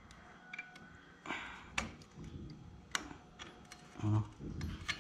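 Scattered metallic clicks and knocks as the front brake drum of a Honda Recon 250 ATV is rocked and worked off its hub by hand.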